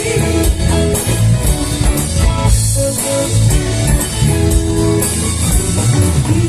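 Live gospel worship band playing an instrumental passage on guitar and drum kit, without singing.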